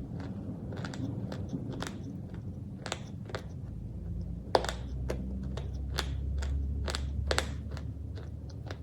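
Close-up chewing of crunchy pieces: a run of sharp, irregular crunches, a few each second. A low hum rises underneath from about halfway through.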